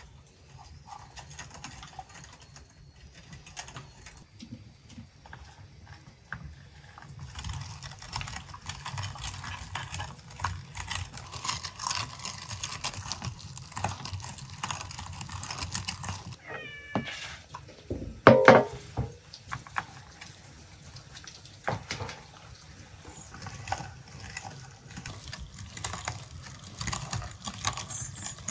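Hand-cranked meat grinder mincing raw fish: the crank turns and the fish squelches and crunches through the blade, densest in the middle. Around 17 to 18 seconds in comes a short, loud, pitched cry, the loudest sound here.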